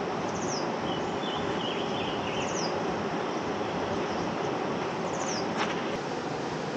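Steady rushing of a river flowing over rocks, with a bird repeating a short, high, falling call about every two seconds and a brief twitter about a second in. One sharp click near the end.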